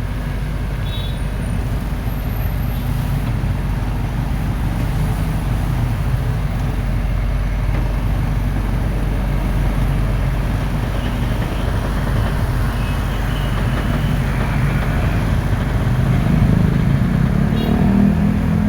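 Excavator's diesel engine running steadily under hydraulic work, its note getting louder and rising about three-quarters of the way through.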